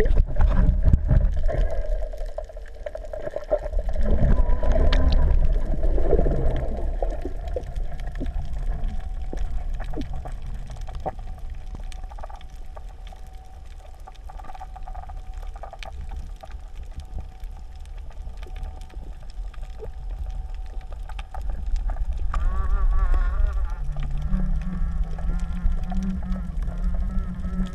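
Underwater sound picked up through an action camera's waterproof housing: a muffled low rumble of moving water, with scattered faint knocks. A steady low hum comes in near the end.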